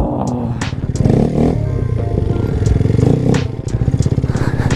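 Small motorcycle engine running and revving up and down a couple of times, with a few sharp clicks over it.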